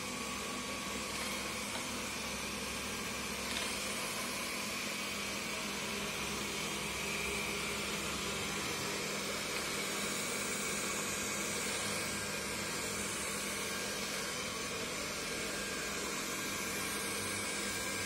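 Xiaomi robot vacuum cleaner running steadily, its suction fan making an even whirring noise with a faint high whine, as it drives among chair legs. One short knock about three and a half seconds in.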